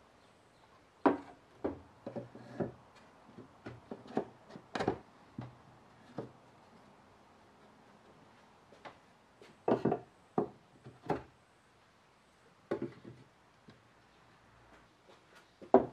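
Wooden whetstone holders and whetstones being set down and fitted into a wooden sharpening stand: a series of sharp wooden knocks and clunks. They come in a cluster in the first few seconds and another about ten seconds in, with quiet between.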